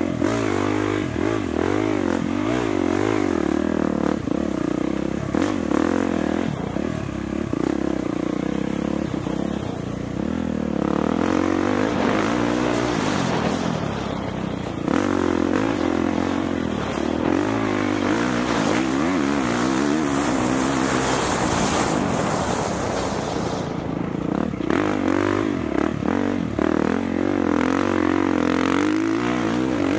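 Dirt bike engine being ridden hard off-road, its revs rising and falling continuously as the rider works the throttle and gears.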